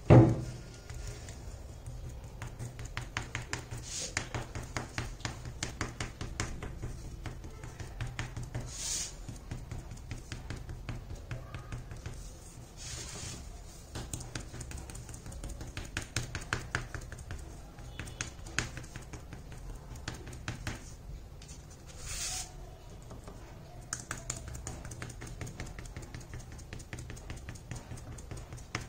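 Sponge dauber dabbing white gesso onto an MDF clock base: a quick, irregular patter of soft taps, with a few brief swishes. A loud knock comes right at the start.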